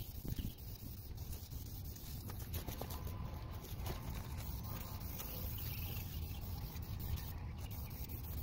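Aerosol spray can of gloss clear coat hissing as it is sprayed, over a steady low rumble.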